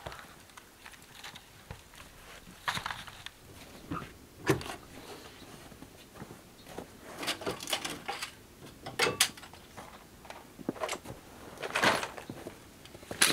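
Irregular knocks, clatters and rustling of things being handled and moved about in a small wooden shed, with a heavy knock about four and a half seconds in, and the shed's wooden door swinging.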